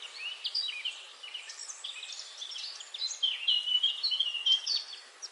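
Many small birds chirping in dense, overlapping calls.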